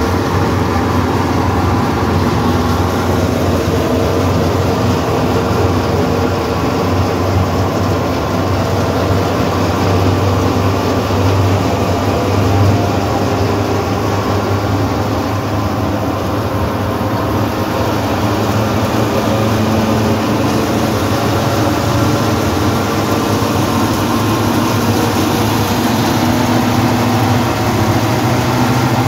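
Patos stationary threshing machine running steadily under load, its belt-driven drum and fan churning through straw and grain, over a steady low drone.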